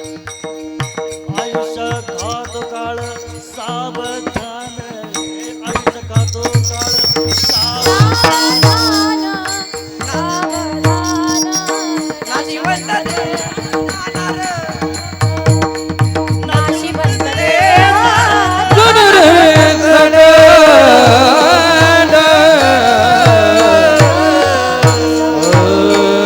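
Marathi kirtan devotional music: a high singing voice over a steady harmonium drone and a regular hand-drum beat. The singing grows louder and fuller about two-thirds of the way in.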